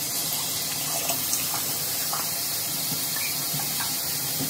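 Tap water running steadily into a sink, with small splashes as soap is rinsed off a face.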